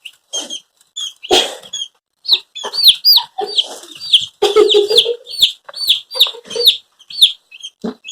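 Cornish Cross chicks peeping rapidly, a steady stream of short, high, downward-curving peeps, with a brief scuffling noise about a second in.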